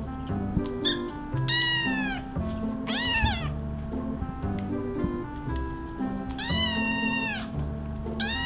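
Ginger tabby kittens meowing in high, thin calls that rise and fall, three times: two short ones early on and a longer one about two-thirds through, with another starting right at the end. Background music plays underneath.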